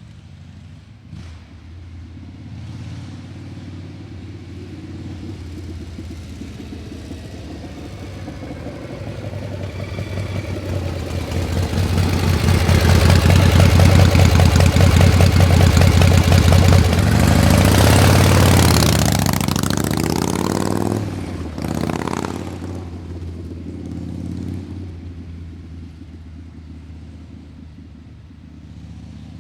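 A motor vehicle's engine drawing closer and passing by, growing to its loudest about 12 to 18 seconds in. Its engine pitch dips and then climbs until it breaks off sharply about 21 seconds in, and the sound fades away afterwards.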